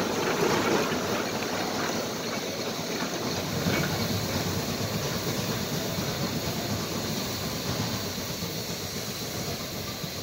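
Shay geared steam locomotives coupled together moving off: a steady rush of steam hiss and running-gear noise that fades as they pull away.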